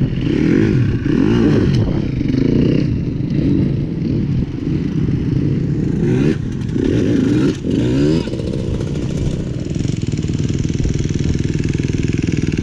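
Dirt bike engines revving up and down in short bursts as riders work their bikes over a log obstacle, settling into a steadier engine note for the last few seconds.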